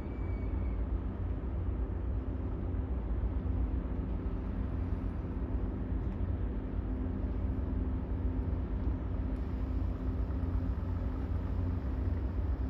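Container ship's engine heard as a steady low rumble with a faint, even hum.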